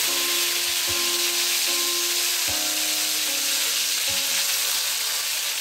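Fresh curry leaves hitting hot oil with popped mustard and cumin seeds, sizzling with a steady hiss as the tempering is made.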